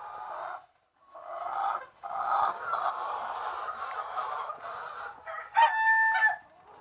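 Caged White Leghorn laying hens clucking and chattering together as a flock, with one loud, drawn-out call standing out near the end.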